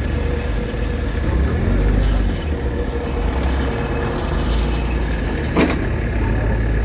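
Diesel engine of a demolition bulldozer running steadily, with a single sharp knock about five and a half seconds in.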